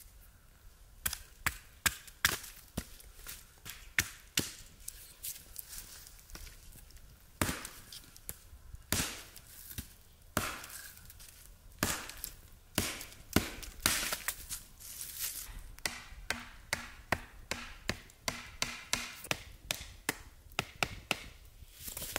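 Hatchet chopping small pieces of wood on a log: a long series of sharp, uneven chops, about one to two a second.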